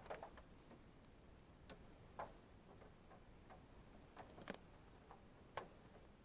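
Scattered raindrops tapping on a parked car's body and glass: irregular single ticks, some louder than others, over a faint steady high whine.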